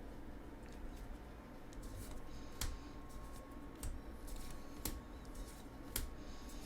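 Magic: The Gathering booster pack and trading cards being handled: faint rustling and sliding, with four sharp clicks about a second apart.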